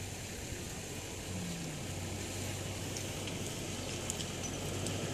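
Vehicle engine idling with a steady low hum, under an even open-air hiss.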